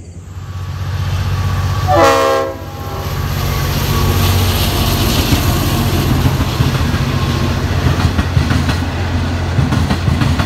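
V/Line VLocity diesel railcar set passing close by. It sounds a short chord horn blast about two seconds in, then its engines drone steadily under the clatter of wheels on the rails.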